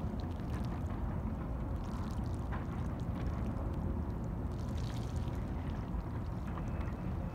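Moving harbour water below, a steady low rumbling wash with a few faint ticks or small splashes.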